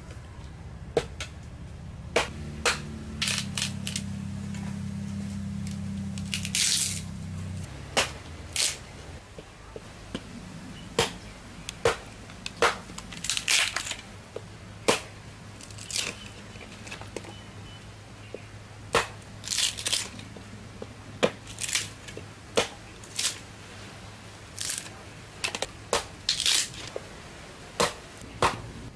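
Hatchet chopping and splitting small pieces of wood into kindling on a log, with irregular sharp chops about once a second. Some chops are followed by the crackle and tear of the wood splitting apart.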